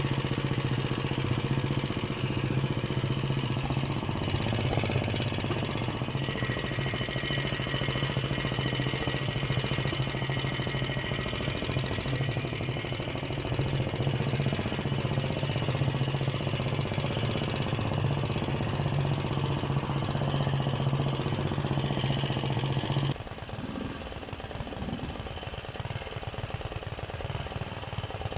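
Luch walk-behind tractor's engine running steadily with a deep, even note. About 23 seconds in, that note drops away and the engine runs quieter.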